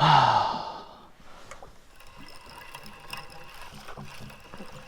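A man's loud groan of disappointment, falling in pitch, as a hooked striped bass throws the lure. It is followed by faint ticking and whirring from a fishing reel winding in the slack line.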